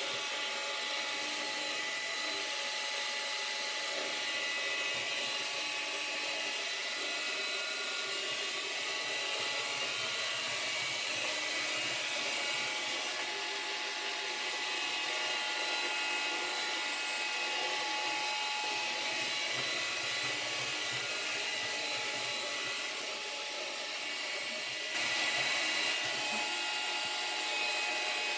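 Samsung Navibot SR8828 robot vacuum cleaner running: a steady motor whine with several held tones over an even hiss, getting a little louder near the end.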